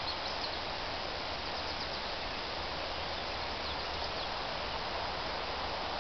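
Steady outdoor background hiss, with a few faint, brief, high chirps now and then.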